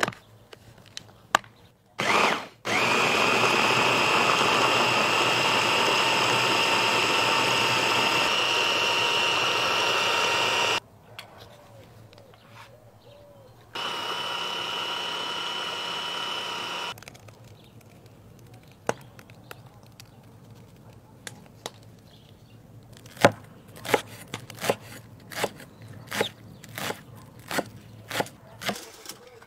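Electric hand (immersion) blender running steadily for about eight seconds with a whine that rises slightly in pitch, then a quieter steady whine for about three seconds. Near the end, a chef's knife chops green onions on a wooden board in a run of sharp knocks, about one or two a second.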